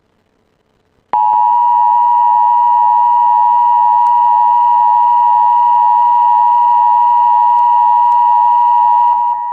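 Emergency Alert System attention signal: a steady two-tone alert tone that starts abruptly about a second in, after near silence, holds for about eight seconds and stops just before the end.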